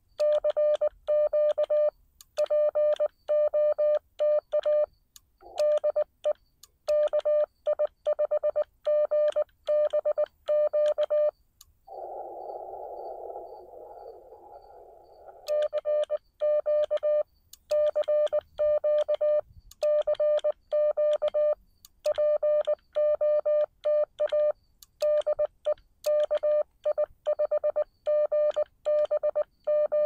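Morse code sidetone from a Xiegu X6100 transceiver: a steady tone near 600 Hz keyed in dots and dashes from a paddle, as a CW CQ call is sent. About twelve seconds in the keying stops for a few seconds of receiver hiss heard through the narrow CW filter, then the calling resumes.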